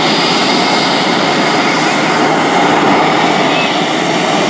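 Twin General Electric F414 turbofan engines of an F/A-18F Super Hornet at taxi power, a loud, steady jet engine noise.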